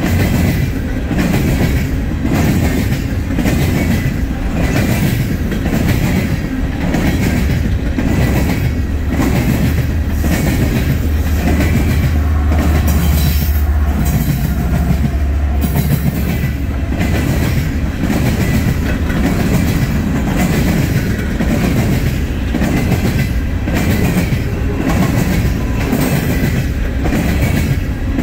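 Coal hopper cars of a Norfolk Southern freight train rolling past, their wheels clicking over the rail joints in a steady, regular clickety-clack. Around the middle, a pair of mid-train diesel locomotives goes by, adding a deep engine drone for several seconds.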